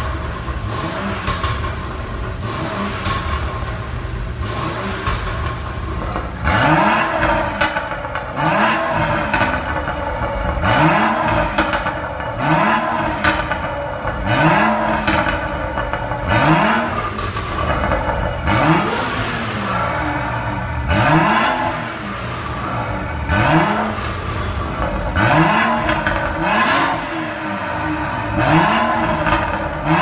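BMW 435i's turbocharged 3.0-litre inline-six through an Armytrix valvetronic exhaust. It runs steadily for about six seconds, then is blipped into a dozen or so quick revs, each rising and falling in pitch, about one every two seconds.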